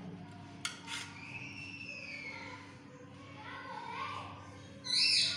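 Two light clicks of a knife against a steel plate, then high bird calls: one long falling call about a second and a half in, and loud squawks near the end. A steady low hum runs underneath.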